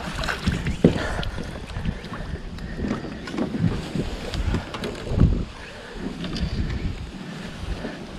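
Wind buffeting the microphone on a small fishing boat: a low, uneven rumble with scattered knocks, the strongest about a second in and again about five seconds in.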